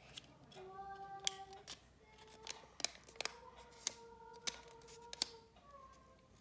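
Paper being folded and creased by hand: scattered sharp, crisp clicks and crackles. Soft held musical notes sound underneath.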